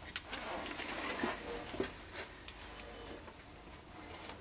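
Paper rustling and crinkling as the backing sheet is peeled off an adhesive etching stencil, for about the first two seconds, followed by a few faint light taps.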